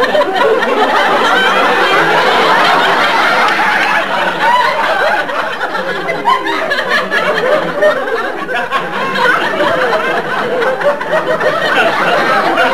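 Studio audience laughing and chuckling, a steady mass of many voices without a break.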